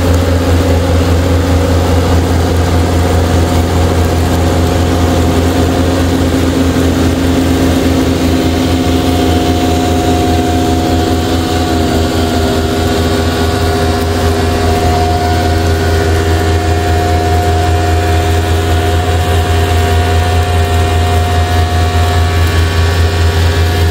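Case IH Puma 180 CVX tractor's six-cylinder diesel engine running steadily under load while pulling a slurry tanker. A higher steady whine joins in about ten seconds in and drops away near the end.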